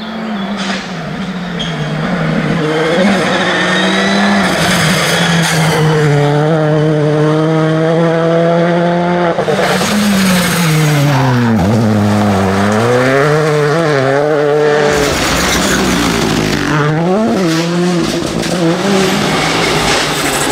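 Rally cars' turbocharged four-cylinder engines running hard on a tarmac stage. The engine note holds high, then drops and climbs again twice as the cars brake, shift down and accelerate away.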